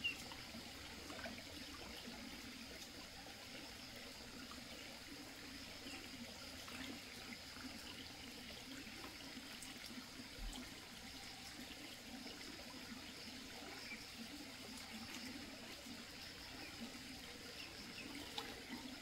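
Shallow stream water trickling steadily over a muddy, stony bed, with a few faint short high chirps now and then.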